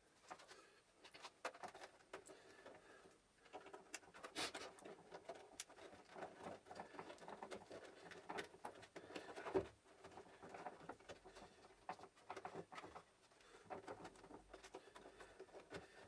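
Faint scattered clicks and knocks of plastic vacuum-cleaner housing parts being handled during reassembly, with one louder knock about halfway through.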